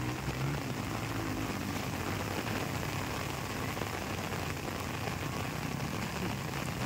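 Heavy rain falling steadily, a dense, even hiss. A faint motorcycle engine fades out in the first second.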